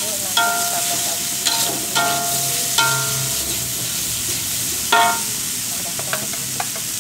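Fried rice sizzling in a wok while a metal spatula stirs and scrapes it, striking the wok several times with short metallic clangs that ring briefly, the loudest about five seconds in.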